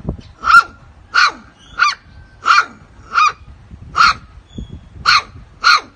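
A puppy barking in a run of about eight short, high-pitched barks, a little under one a second.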